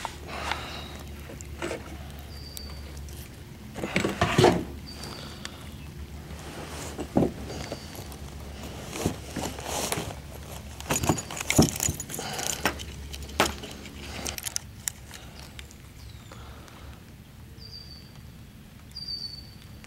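Handling noise in a kayak while a caught bass is weighed on a digital hand scale: irregular knocks, clicks and rustles, the loudest a few sharp knocks. Several short high bird chirps come and go.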